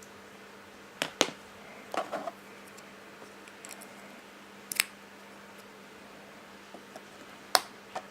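A few sharp clicks and knocks of hardware being handled and plugged together: two about a second in, a short cluster near two seconds, one near five seconds and two near the end, over a faint steady hum.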